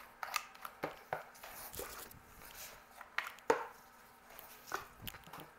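Margin trowel scooping wet, properly mixed thinset mortar and scraping it off onto a board: a string of soft, irregular scrapes and taps.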